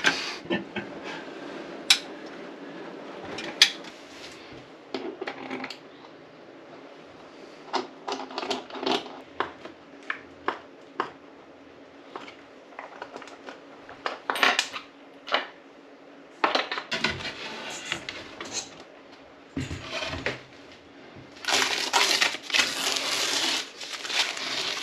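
Scattered sharp clicks and metallic clinks of hand tools and mounting clips working against a stainless steel sink set in a wooden countertop. From about 21 seconds in, a dense crackle of blue painter's tape being peeled off and crumpled.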